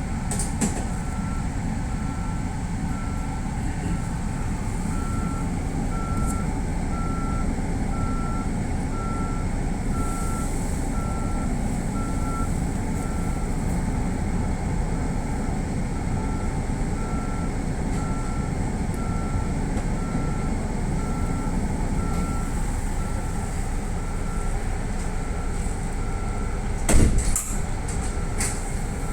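Steady low hum of a stopped electric commuter train's onboard equipment, with a thin beep repeating at even intervals throughout. A short clatter near the end.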